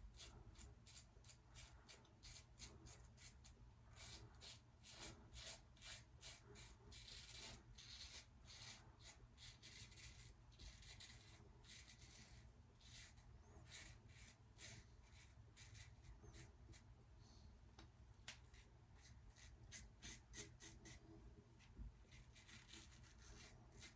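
Faint, repeated scraping of an open-comb injector safety razor cutting through several days' stubble under shaving lather, many short strokes one after another.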